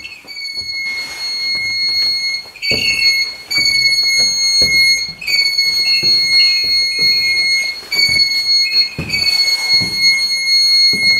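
REM pod alarm sounding a steady high electronic tone, broken by short gaps every second or two, with a few brief higher chirps; it is the sign of the pod's field sensor being set off. A few low knocks of handling or footsteps underneath.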